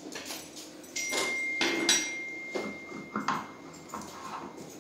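Hard plastic parts of a ride-on toy motorbike being handled as a plastic wheel is fitted and a metal axle rod pushed through it: knocks and scraping of plastic on plastic and metal. A thin, steady high tone sounds for about two seconds, starting about a second in.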